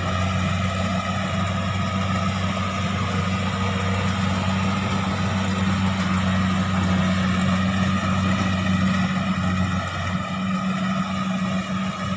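Diesel engine of a crawler rice combine harvester running steadily at a constant pitch.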